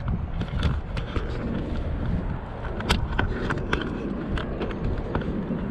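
Irregular clicks and knocks over a low rumble as a GoPro is moved and jostled aboard a small canoe: handling and bumping noise.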